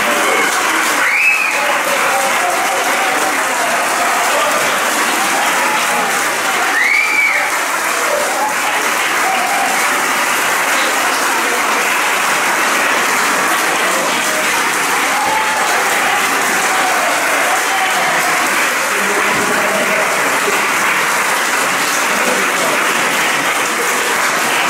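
An audience applauding steadily, with a few voices calling out over the clapping, twice near the start.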